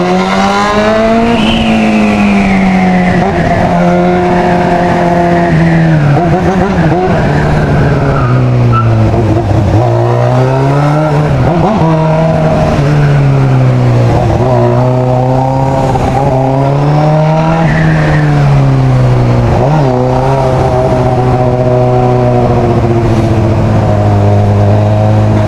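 Motorcycle engine running under way, its pitch climbing and dropping several times as it accelerates, shifts and eases off, settling to a steady note near the end.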